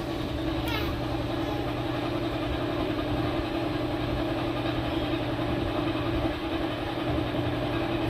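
A steady mechanical hum, like a small motor running, holding one constant low tone with no change in speed.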